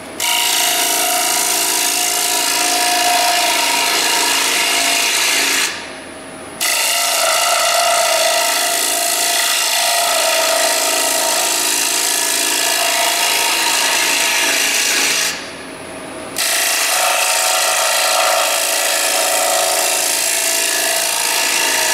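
Carbide hollowing tool cutting the inside of a wooden bowl spinning on a wood lathe: a loud, steady scraping hiss of wood being cut. It breaks off twice for about a second as the tool comes off the wood.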